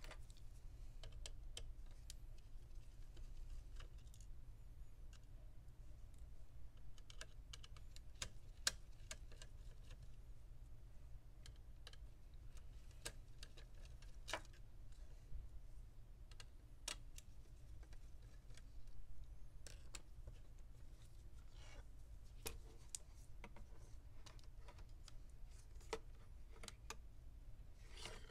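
Scattered light clicks and taps of gloved hands handling a laptop's heatsink-and-fan assembly and motherboard, irregular and spaced out, over a low steady hum.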